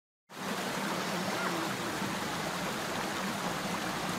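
Steady rushing of a stream's running water, which cuts in abruptly just after the start.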